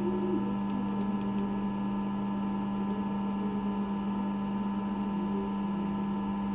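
Steady electrical hum from workshop machinery, one unchanging low tone with fainter higher tones above it, and a few faint light clicks about a second in.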